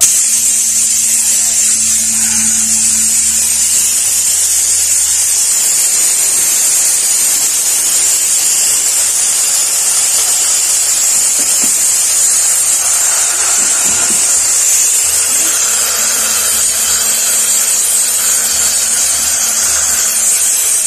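A steady, loud high-pitched hiss that does not change, with a faint low hum under it for the first few seconds and again in the last few.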